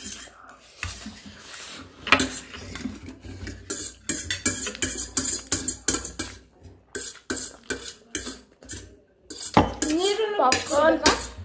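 Forks clinking and scraping on steel plates during fast eating, many short clicks in a row. A child talks near the end.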